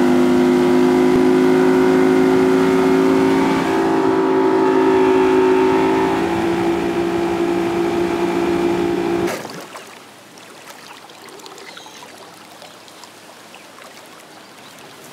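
Motorboat engine running steadily at cruising speed, a loud, even drone with a few held pitches. About nine seconds in it cuts off abruptly, leaving only a faint outdoor hiss.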